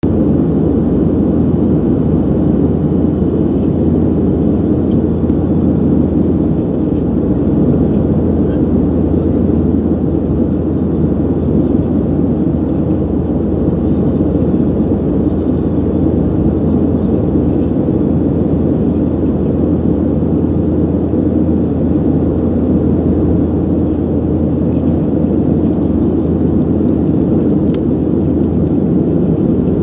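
Steady, loud drone of an Antonov An-24's two turboprop engines and propellers, heard inside the passenger cabin on the approach to landing. A faint high whine joins near the end.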